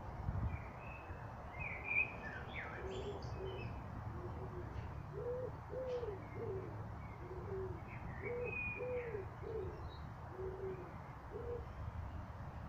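A dove cooing, a repeated phrase of low hooting notes through most of the clip, with a small bird chirping higher up near the start and again later. A steady low rumble runs underneath, with a couple of soft bumps near the start.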